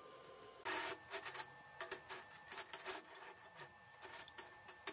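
Short steel bars clinking and scraping on a perforated steel welding table as they are laid out by hand: a louder scrape or clatter about a second in, then a run of quick light clinks.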